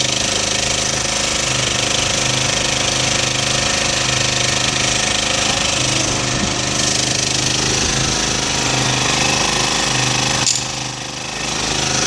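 Small generator set's engine running steadily with a rapid, clattering rhythm. Its level drops briefly about ten and a half seconds in.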